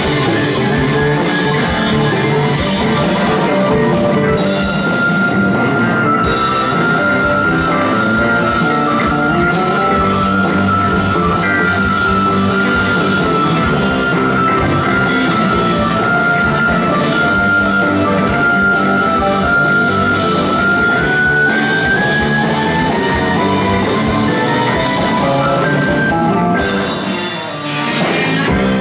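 Rock band playing live with drum kit, electric guitars, bass and keyboard in an instrumental passage. A single high note is held for about fifteen seconds and then climbs in pitch, and the sound thins out briefly near the end before the band comes back in full.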